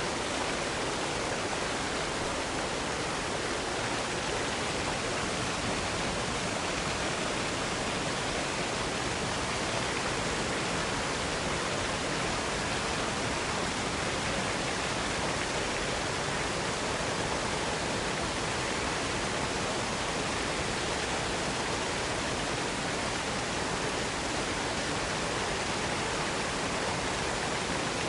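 Waterfall in a small wooded box canyon: a steady, even rush of falling water with no breaks or changes.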